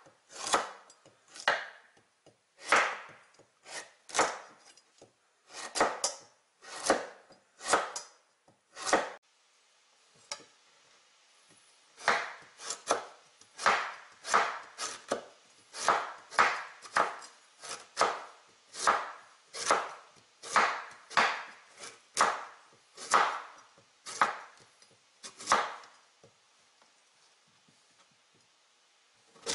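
Kitchen knife slicing hard raw quince on a wooden cutting board: a steady series of sharp chops, about one a second, with a pause of a few seconds about a third of the way in.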